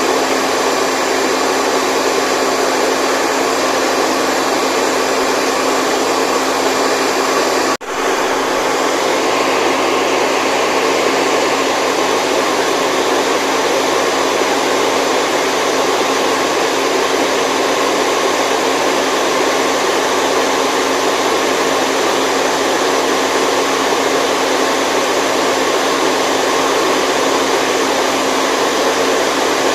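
Steady white noise for a baby's sleep: an even rushing noise with a faint steady hum in it. It drops out for an instant about eight seconds in.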